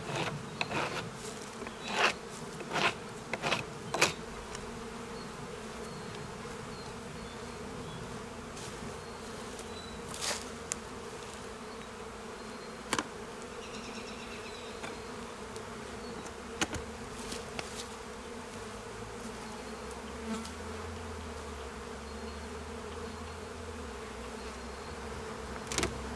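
Honey bees buzzing around an open hive, a steady hum. Sharp knocks and clicks are mixed in, several in the first four seconds and a few scattered later.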